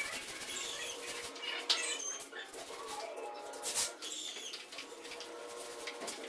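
Paint roller on an extension pole being rolled up and down a wall, with two brief louder swishes in the first four seconds.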